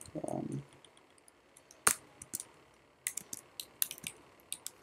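Computer keyboard keys tapped in short, irregular runs: a single sharp keystroke about two seconds in, then a quick cluster of taps a little after three seconds.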